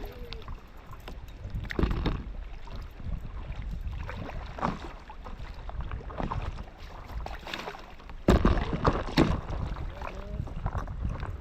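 Paddle strokes splashing in the water from a paddleboard, coming irregularly with the loudest pair near the end, over a steady rumble of wind on the microphone.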